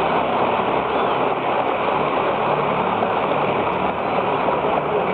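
Stadium crowd applauding steadily, heard through an old, narrow-band archival recording.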